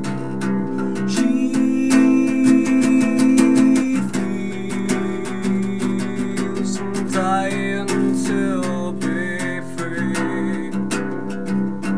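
Acoustic guitar strummed in steady rhythmic chords, an instrumental passage between sung verses of a solo song.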